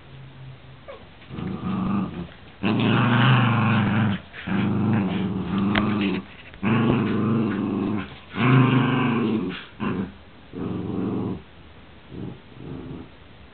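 Dog growling in play during a tug-of-war over a rope toy: a series of long, low growls about a second each, with short breaks between them, the last few shorter and weaker.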